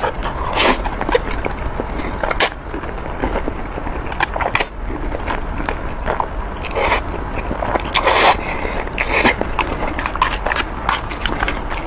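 Close-miked eating sounds: saucy noodles slurped in and chewed with wet mouth smacks, coming as sharp bursts every second or two, with a plastic fork scraping in a foil tray.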